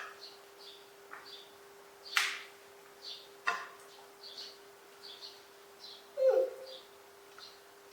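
Many short high chirps repeating irregularly, with a few louder sharp noises about two, three and a half, and six seconds in, over a faint steady hum.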